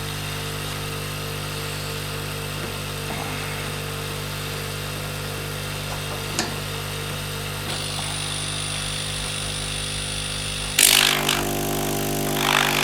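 Small aquarium-type diaphragm air pump running with a steady electric buzz, with a sharp click about six seconds in. Near the end a louder rushing hiss starts suddenly and comes twice.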